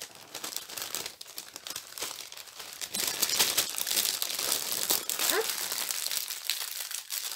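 Small plastic sachets of diamond painting drills crinkling and rustling as they are handled and packed back into a plastic bag.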